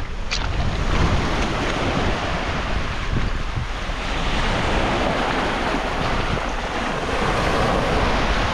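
Small sea waves washing in over a stony shore, foaming and hissing among the rocks, with wind rumbling on the microphone.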